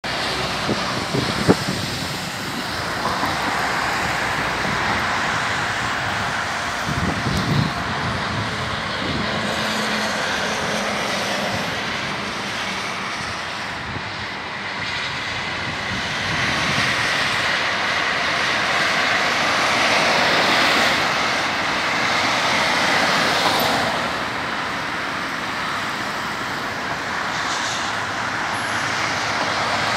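Heavy road traffic: a steady wash of vehicle and tyre noise that swells and eases as vehicles go by, with one sharp knock about a second and a half in.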